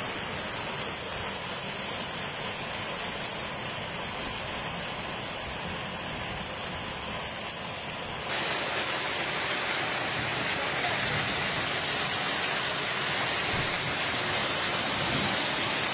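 Steady rush of water from storm flooding and heavy rain, with no clear rhythm or tone. It turns louder and brighter suddenly about eight seconds in.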